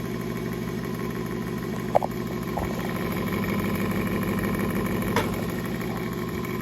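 Antique General Electric 6-inch Type G table fan running at its single speed: a steady, loud motor hum with the desk vibrating under it. The fan is in need of servicing, by the owner's word. A few faint clicks come about two seconds in and again near five seconds.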